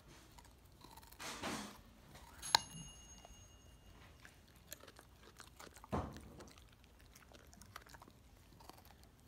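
Pit bull chewing a raw carrot: scattered crisp crunches and snaps, with a strong crunch about six seconds in. About two and a half seconds in, the loudest sound is a single sharp click that rings briefly.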